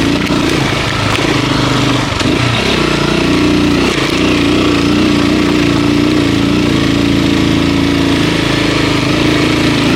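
Engine of a moving vehicle running steadily at an even pitch, over a constant rushing noise.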